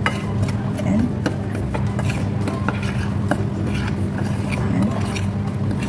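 A metal fork stirring flour and chili powder on a ceramic plate, with irregular clinks and scrapes of the fork against the plate, over a steady low hum.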